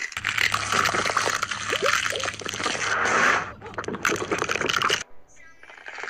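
Water splashing and sloshing, with a steady low hum underneath; it cuts off abruptly about five seconds in.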